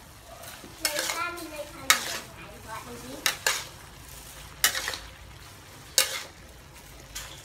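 A spatula stir-frying beef and baby corn in a stainless steel wok over a steady sizzle, scraping and clanking against the pan about six times, roughly once a second.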